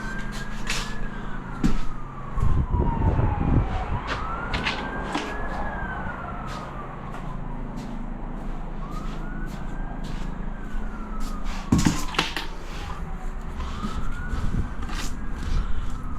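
Emergency vehicle siren wailing in slow cycles, each a quick rise and a long falling glide, repeating about every four and a half seconds. Occasional sharp clicks and knocks, with a low rumble around three seconds in.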